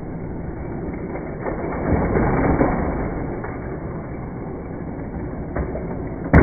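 Hot Wheels die-cast cars running around a plastic Crazy 8 track set: a steady rolling rumble, with one sharp clack near the end.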